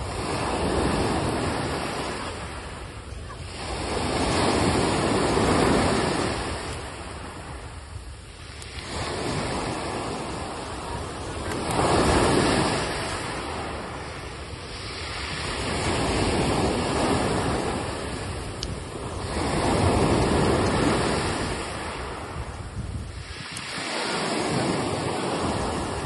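Sea waves washing onto a shore: a rush of surf that swells and fades again about every three to four seconds.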